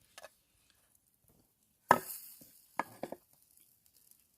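A sharp knock about two seconds in, then a few lighter clicks, with faint small clicks before it.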